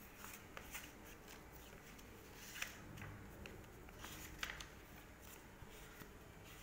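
Faint rustles and soft flicks of paper as a passport's cover and pages are turned by hand, a handful of light ticks spread through.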